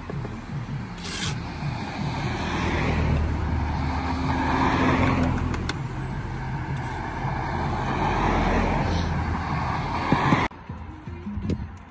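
Road traffic passing close by: a steady rush of tyre and engine noise that swells and fades as cars go past, with a few sharp clicks. The noise drops away suddenly near the end.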